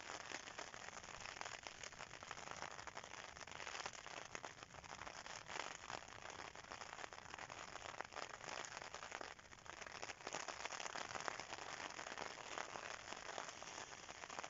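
Faint rain falling on a tent's flysheet, heard from inside the tent: a dense, even hiss of many small drop hits, easing briefly a little past halfway.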